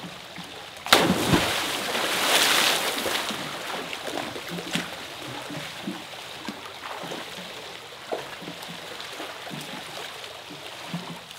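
A person plunges into a swimming pool about a second in with a loud splash, followed by sloshing, lapping water and smaller splashes as he moves through the water and climbs out near the end.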